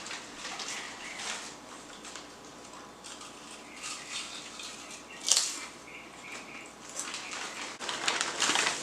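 Crunching and chewing of a crisp snack close to the microphone: irregular crunches, with one louder crunch about five seconds in.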